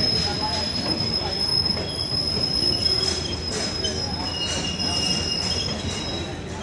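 Passenger train coaches rolling past on steel rails, the wheels giving a steady high-pitched squeal that fades near the end over the low rumble of the running train. A second, lower squeal sounds briefly about four and a half seconds in.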